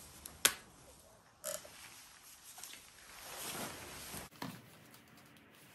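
Plastic bottle of Meguiar's Ultimate Compound being opened and squeezed: a sharp click about half a second in, then squelchy, sputtering squirts as the thick compound is dotted onto the marble, cutting off abruptly about four seconds in.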